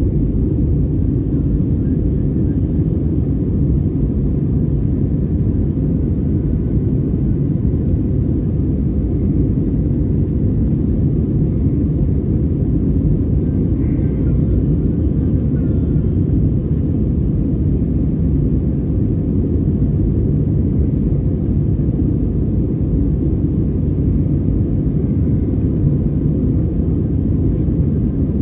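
Steady low rumble inside the cabin of an Airbus A320neo, from its CFM LEAP-1A turbofan engines and airflow over the fuselage during the climb after takeoff.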